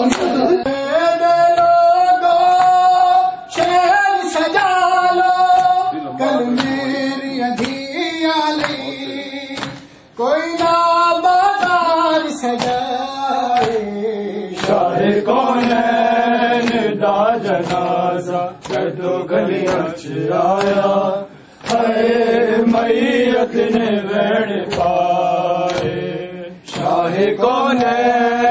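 Men's voices chanting a Shia mourning lament (noha) in long, drawn-out phrases that repeat, with sharp slaps of hands striking bare chests in matam.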